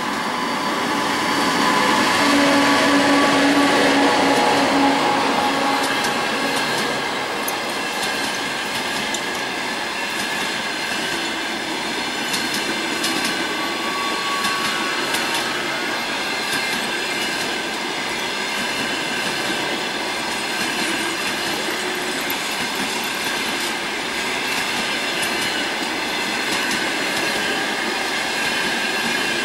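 Passenger coaches of an express train, hauled by an EP20 electric locomotive, passing at speed: a continuous rush of steel wheels on rail with scattered clicks over the rail joints. Loudest from about two to five seconds in, where a steady hum sits over the rush, then an even rumble as the coaches keep going by.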